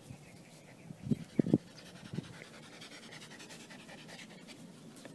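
Shiba Inu panting with its mouth open. A few short thumps come close together about a second in, and they are the loudest sounds.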